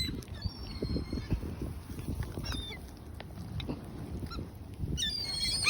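A flock of birds calling while being fed: scattered short high calls, turning into a flurry of overlapping calls near the end.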